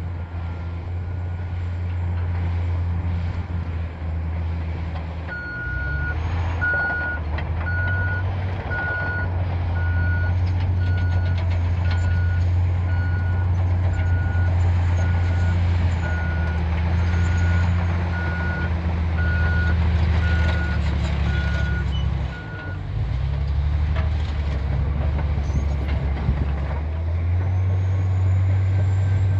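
Caterpillar D10T bulldozer's C27 diesel engine running under load. About five seconds in, a reversing alarm starts beeping a little faster than once a second and keeps on for roughly seventeen seconds. The engine note dips briefly as the beeping starts and again as it stops.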